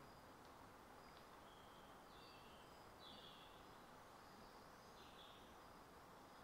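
Near-silent woodland background: a steady faint hiss with a few faint, short, high bird calls about two, three and five seconds in.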